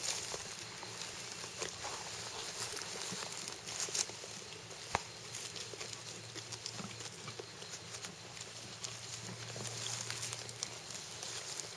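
Boer goats grazing close by: scattered crisp clicks and rustling as they crop grass and step through it, with a couple of sharper clicks about four and five seconds in.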